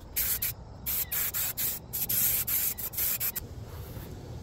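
3M Super 77 aerosol spray adhesive hissing from the can in rapid short bursts, about four or five a second, stopping a little after three seconds in.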